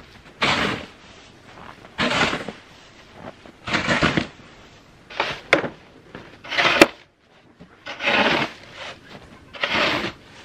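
Snow shovel scraping and pushing snow over the ground, seven strokes about one every one and a half seconds; one stroke, a little past the middle, ends in a sharp knock of the blade.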